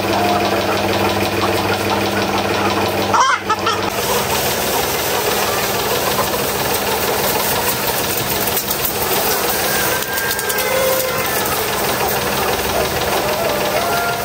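A machine running steadily with a constant hiss and low hum. The hum drops out about three seconds in, after a brief break in the sound. A few short, faint calls come through near the end.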